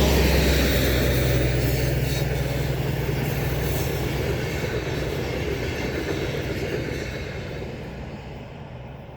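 A DB class 218 diesel-hydraulic locomotive pulling an Intercity train goes past and away. Its loud engine drones on together with the rolling of the coaches, and the sound fades steadily over the last few seconds.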